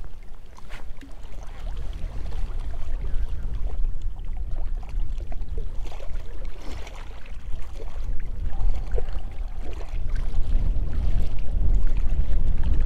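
Wind buffeting the microphone in a steady low rumble, with choppy lake water lapping at the shore.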